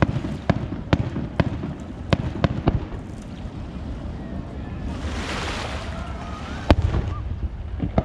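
Aerial fireworks going off: a string of sharp bangs from shell bursts in the first three seconds, a hissing rush about five seconds in, then a loud bang and more quick reports near the end.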